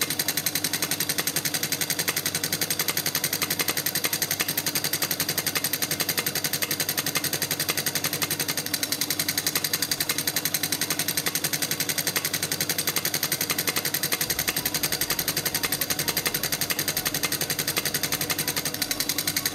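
Thermoacoustic Stirling engine running: a steady hum with a fast, even mechanical pulsing.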